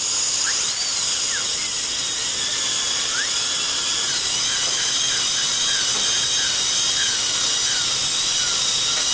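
High-speed dental handpiece running steadily with a high whine and hiss, its pitch rising and dipping slightly as the bur works on the tooth root.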